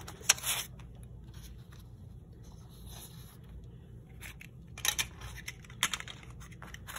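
Handling noises as plastic tape dispensers and a paper flashcard are picked up and slid off a board. There is a sharp click just after the start, then scattered light knocks and scrapes, with a few bunched around five seconds and again near six.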